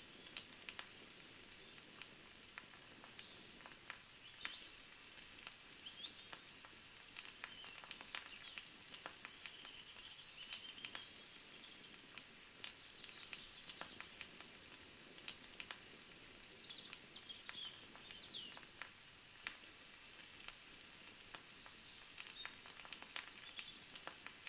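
Faint outdoor ambience: small birds chirping now and then over a light hiss, with scattered sharp clicks and crackles throughout.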